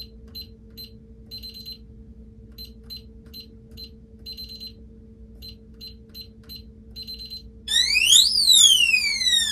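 VEVOR gun safe's digital keypad beeping as wrong codes are punched in: three rounds of short key-press beeps, each ending in a longer beep. After the third wrong entry, about eight seconds in, the safe's alarm goes off, a much louder siren sweeping up and down about once a second.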